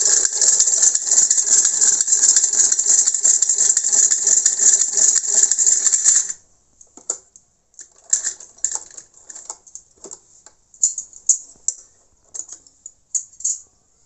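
Hand-cranked Brother sewing machine stitching at speed, a loud, fast, even clatter of needle and mechanism that stops abruptly about six seconds in. After that, only scattered light clicks.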